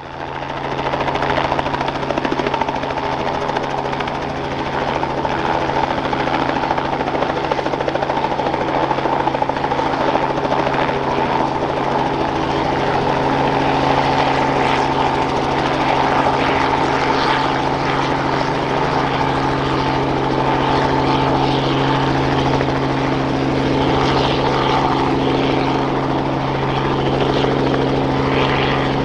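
Robinson R44 Clipper II helicopter hovering low, its Lycoming IO-540 six-cylinder engine and main and tail rotors running steadily with a constant droning hum. The sound fades in over the first second or so.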